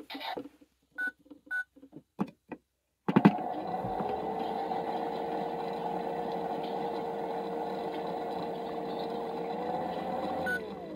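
Toy washing machine: two short button beeps, then a click and its small electric motor spinning the drum with a steady hum for about seven seconds. Near the end another beep sounds and the hum shifts in pitch and winds down.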